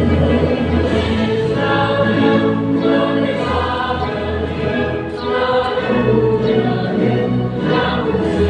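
Choir singing with musical accompaniment, in long held notes that change pitch every second or so.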